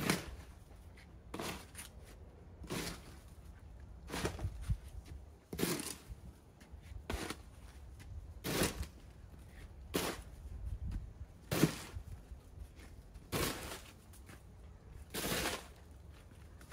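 Snow crunching underfoot or under a tool in a slow, even rhythm, about one crunch every second and a half. A low rumble runs underneath.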